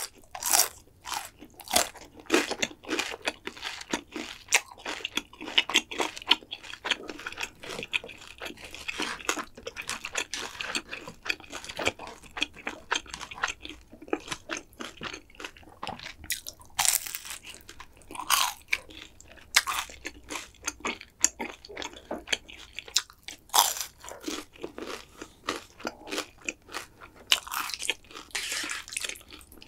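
Close-miked eating sounds: wet chewing of black bean noodles mixed with many short crunchy bites and crackles, a few of them louder about 17, 18 and 23 seconds in.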